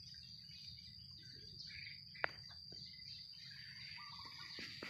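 Outdoor field ambience: a steady high-pitched insect trill with scattered bird chirps. A single sharp click a little over two seconds in, with a few softer clicks near the end.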